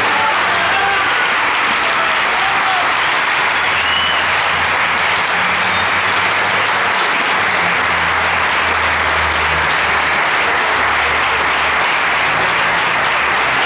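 Audience applauding steadily at the end of a song, many hands clapping without letup.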